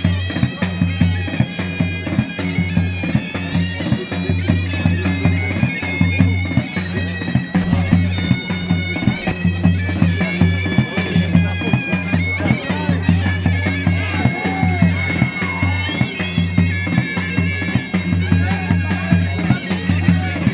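Bulgarian folk wind music: a shrill reed instrument plays a high, ornamented melody over a steady low drone, with a drum keeping a regular beat of about three to four strokes a second.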